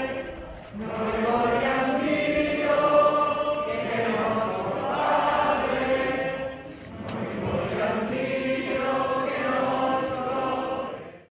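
A group of voices singing a religious hymn together in long, held phrases, with short breaths about a second in and again near seven seconds; the singing cuts off suddenly at the end.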